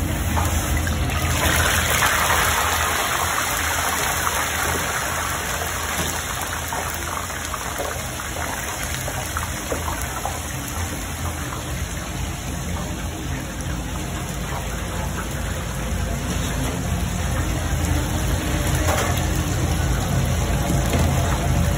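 Whole mojarra deep-frying in a commercial fryer's hot oil: a loud, steady sizzling and bubbling hiss that surges as the fish drops in about two seconds in, then carries on evenly. A low steady hum runs underneath.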